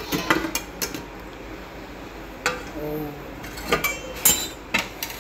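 Aluminium cooking-pot lid clinking and clattering against the pot as it is taken off, a series of sharp metal clinks.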